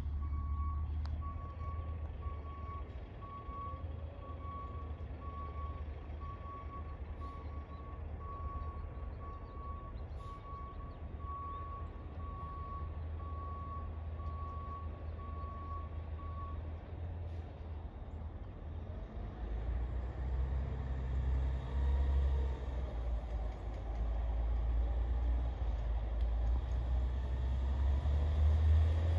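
Mack LEU CNG garbage truck's backup alarm beeping at an even pace, a bit more than once a second, for about sixteen seconds over a low engine rumble. After the beeping stops, the engine grows louder as the truck drives closer.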